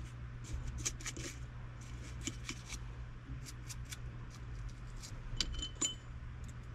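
Small metal parts and tools of a disassembled Shimano Stella spinning reel clicking and clinking as they are handled, in quick irregular ticks, with a couple of brief metallic rings about five and a half seconds in. A steady low hum runs underneath.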